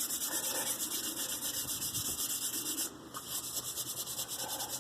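Sandpaper rubbed by hand along a wooden spoon's handle in quick back-and-forth strokes, a rhythmic scratchy hiss, smoothing and shining up the wood. The strokes pause briefly about three seconds in.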